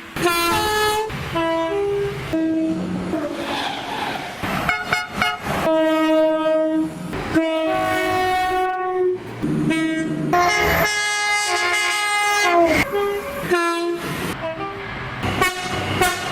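A rapid run of British train horns edited back to back with abrupt cuts, each sounding a second or so. Many step between two notes, and one drops in pitch as it passes, over the rumble of trains on the rails.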